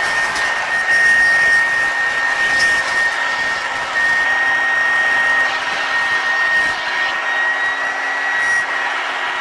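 1981 Hoover Junior U1012 upright vacuum cleaner running: a steady high motor whine over the rush of air.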